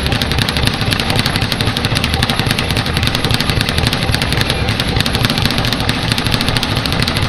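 Speed bag punched fast with alternating fists: a continuous, even rattle of rapid strikes against the rebound board.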